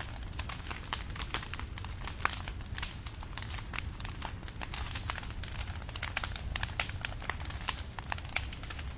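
Firewood burning, crackling with many irregular sharp snaps and pops over a low steady rumble, one snap about two seconds in louder than the rest.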